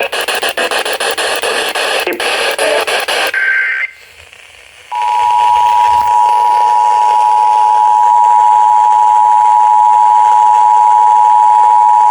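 Emergency Alert System broadcast: a harsh, buzzing data burst of the alert's digital header ends about three seconds in. After a second's gap, the two-tone EAS attention signal sounds steadily and loudly from about five seconds in, announcing a severe thunderstorm warning.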